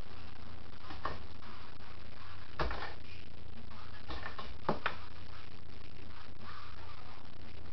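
A handful of sharp clacks from a fingerboard's deck and wheels hitting a hard tabletop, two of them in quick succession about five seconds in, over a steady low hum.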